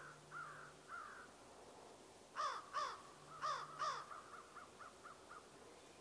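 A crow calling: three calls in the first second, then four louder caws in quick succession about halfway through, followed by a fast run of short softer notes.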